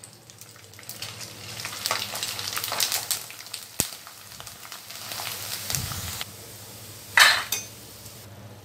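Murukku deep-frying in hot oil: a sizzle full of small crackles that swells about two seconds in and dies down after about six seconds, with a brief louder hiss near the end.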